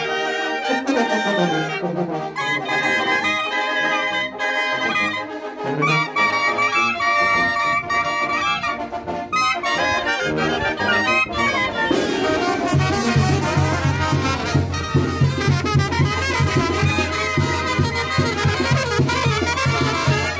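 Brass band music with trumpets and trombones. About twelve seconds in it changes to a fuller passage with a steady low bass pulse.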